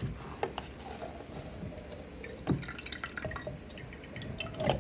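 Cold brew coffee dripping and trickling from a mesh filter of soaked grounds as it is lifted out of the pitcher, with light clicks and two soft knocks, one midway and one near the end.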